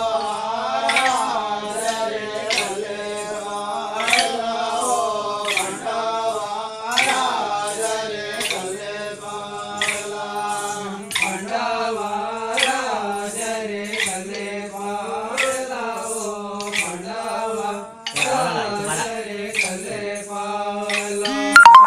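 Group of voices chanting a Kudubi Holi dance song over a steady held low note, with sharp percussive beats about once a second. A brief loud burst comes near the end.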